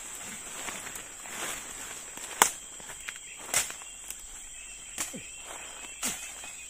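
Footsteps pushing through undergrowth, with irregular sharp snaps and cracks, the loudest about two and a half seconds in. Under them runs a steady high insect buzz.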